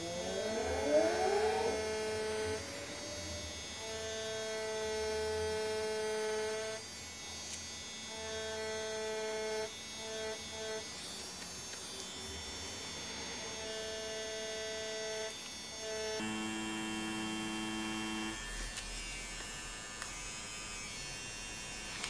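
DragonHawk Mast Archer wireless rotary tattoo machine running with a steady electric hum, switched on and off in runs of a few seconds while lining. About a second in there is a brief rising whine, and for about two seconds near the end it hums at a lower pitch.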